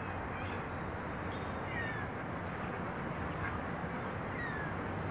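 Duck pond ambience: a steady rush of noise with a few short, falling bird calls, about two seconds in and again near the end.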